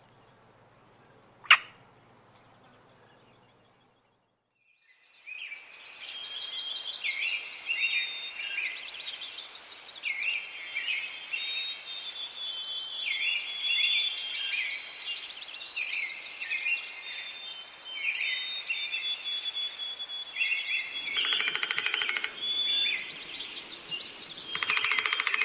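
A faint steady high buzz with one sharp click about a second and a half in. After a short break, a dense chorus of songbirds starts: many quick chirps and trills overlapping, with two rapid rattling calls near the end.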